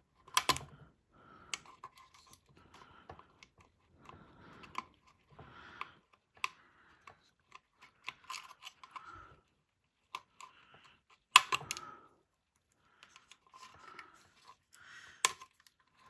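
Small plastic stepper-motor plugs being worked loose and pulled out of a 3D printer's mainboard. Sharp plastic clicks and snaps come with soft rustling and scraping of the wires between them. The loudest snaps come about eleven and fifteen seconds in.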